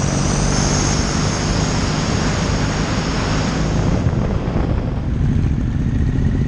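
Motorcycle engine running at road speed, with wind rushing past; the high rush eases about four seconds in.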